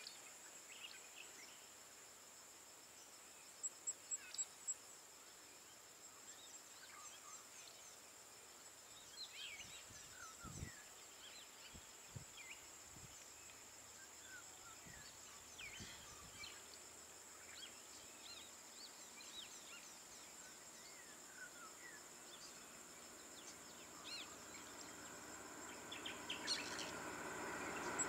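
Quiet countryside ambience: a steady high insect drone with scattered short bird chirps. A quick run of clicks comes about four seconds in. Near the end a vehicle engine grows louder as it approaches.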